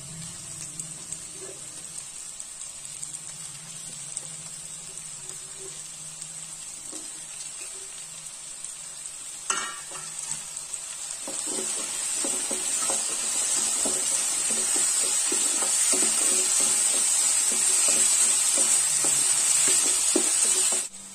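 Chopped vegetables and onion-tomato masala sizzling in oil in a pan. A single knock comes about nine seconds in. After that the sizzle grows louder, with a wooden spatula stirring and scraping through the vegetables.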